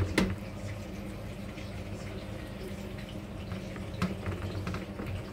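A metal spoon knocking against a metal baking tray a few times, once just after the start and again about four seconds in, over a steady low hum.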